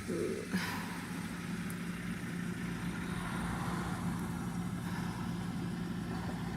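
Heavy vehicle engine running steadily; its pitch steps up right at the start and then holds level. A short sound and a small knock come within the first second. The vehicle is stuck in deep snow.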